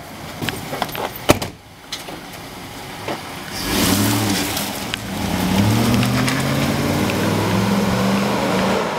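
A sharp knock about a second in, then a car engine revs and accelerates away from about three and a half seconds in, its pitch rising slightly.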